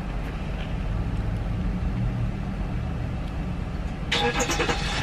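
Car running, a steady low rumble heard from inside the cabin, with a brief louder noise about four seconds in.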